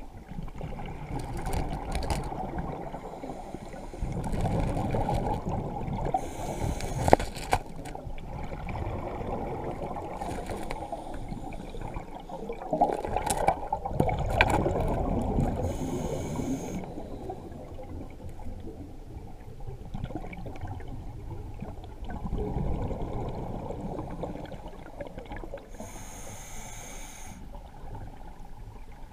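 A scuba diver breathing through a regulator underwater: a short hissing inhale about every ten seconds, alternating with a longer low bubbling rumble of exhaled air.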